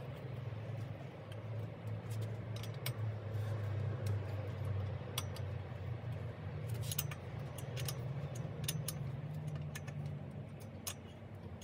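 Scattered short metallic clicks and clinks from a hex key and crankset as a crank arm is fitted and its bolt tightened, over a steady low hum.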